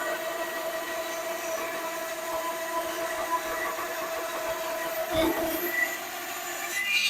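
Woodworking power saw and shop dust collector running steadily while a 3/4-inch board is split in two, a continuous machine drone with a steady hum.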